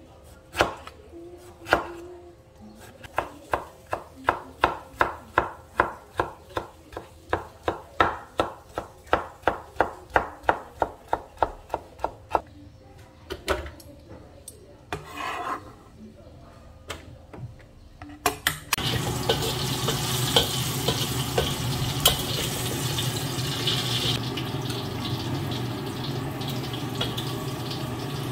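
Kitchen knife chopping boiled bamboo shoots on a wooden cutting board, a few cuts and then a steady run of chops at about three a second. About two-thirds in, after a short pause, a steady hiss starts and runs on.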